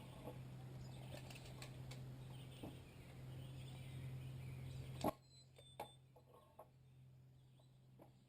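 Faint outdoor background: a low steady hum with light noise that cuts off with a click about five seconds in, leaving a few faint bird chirps and small clicks.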